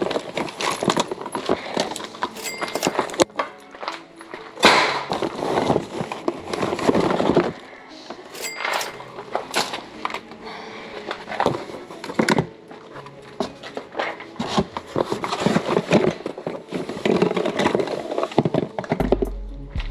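Rummaging through a cardboard box of clothes, wire hangers and small electronics: rustling with frequent knocks and clunks as items are pulled out and set down. A backing beat with a deep bass comes in near the end.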